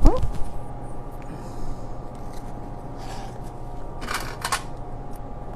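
Hands handling fabric and sewing clips: a low bump right at the start, then two short clicks about four seconds in, over a steady background hum.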